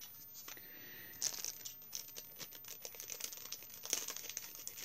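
Hands handling small craft embellishments and their packaging: faint, irregular crinkling with light clicks and ticks.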